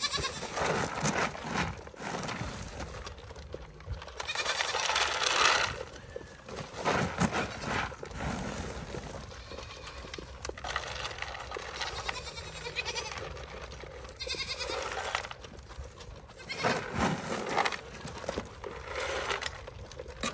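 Goats bleating repeatedly, with a long loud call about four seconds in and more calls near the end.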